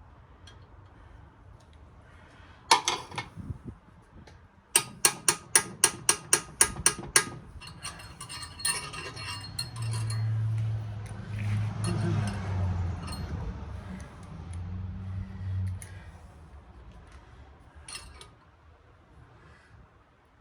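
Metal tools and saw parts clinking during disassembly: a loud clink, then a quick run of about ten sharp metallic taps, followed by several seconds of lower scraping and humming handling noise.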